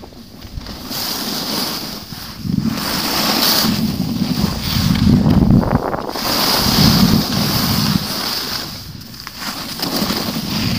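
Skis hissing and scraping over groomed snow during fast downhill turns, with wind rushing over the microphone. The sound swells and fades about once every second or so, one swell per turn.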